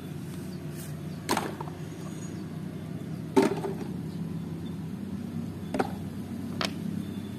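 Mud-coated plastic toys being handled and set down on a plastic tray, with four short knocks, the loudest about three and a half seconds in, over a steady low background hum.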